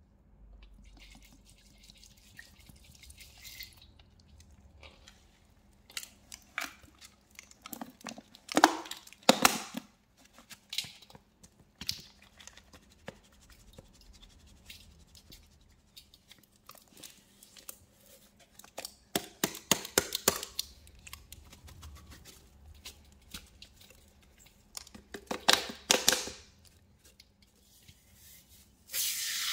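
A recycled cleaning-powder paste mix being poured, falling in irregular crunchy, wet clumps, with three louder bursts. Just before the end an aerosol foam spray starts hissing.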